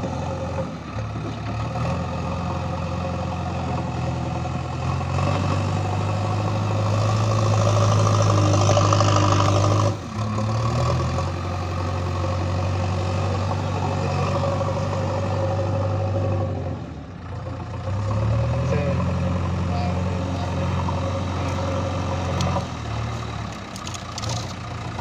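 JCB backhoe loader's diesel engine running under load as it works soil, rising in level for several seconds before dropping back abruptly about ten seconds in, with another brief easing near seventeen seconds.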